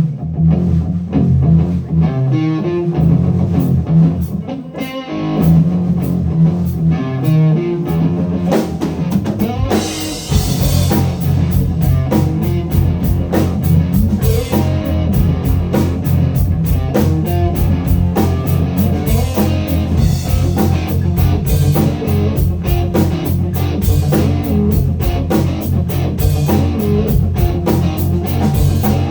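Live blues-rock band playing: electric guitar with drums and bass. The sound is sparser at first, and the full band comes in about a third of the way through.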